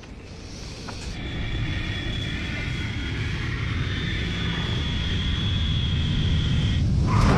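Jet airliner coming in to land: a low rumble building, with a steady high engine whine over it. A sudden louder rush of noise comes in near the end.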